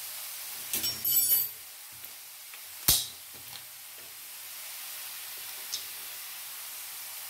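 Grated pointed gourd sizzling steadily in hot ghee in a frying pan. A brief clatter comes about a second in, and a single sharp click, the loudest sound, near three seconds.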